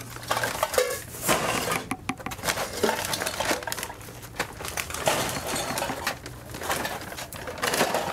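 Old metal cans and scrap iron clattering and rattling in plastic sacks as they are lifted and loaded into a vehicle, a string of irregular clanks.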